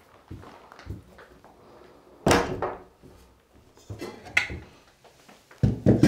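Stainless-steel stove-pipe parts being handled and set down on a cast-iron wood stove: a series of clunks and knocks with brief metallic ringing, the loudest about two seconds in and just before the end. A few soft footsteps on a wooden floor come first.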